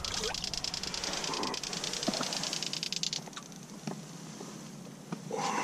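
Fish-finder sonar transducer pinging, heard underwater: a loud, rapid, even ticking that stops about three seconds in, followed by a few faint knocks.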